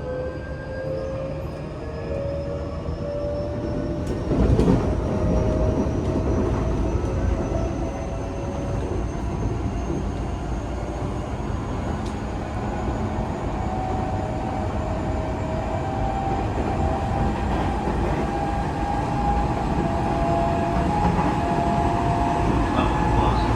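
Tokyo Metro 8000-series train running, heard from inside the car: the traction motors' whine climbs slowly in pitch as the train gathers speed, over a steady rumble of wheels on track. A louder knock comes about four and a half seconds in.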